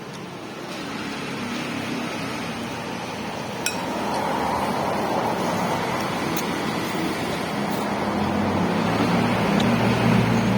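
Road traffic going past: a steady rumble of passing vehicles, with one vehicle's engine coming in and getting louder over the last few seconds. A single sharp click about four seconds in.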